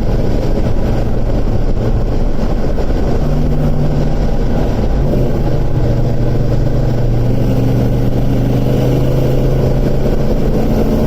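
A 1980 Dodge Dart's V8 engine rumbling as the car drives along the road, over steady road and wind noise. The engine note holds fairly even, stepping up slightly about three seconds in and settling back lower around the middle.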